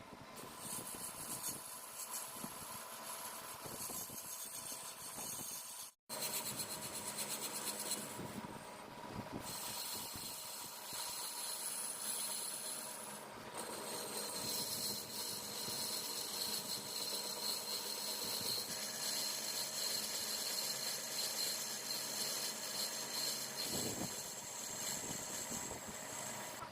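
Metal lathe running while cutting a brass part, a steady hiss with a high-pitched whine over it. The sound drops out for an instant about six seconds in.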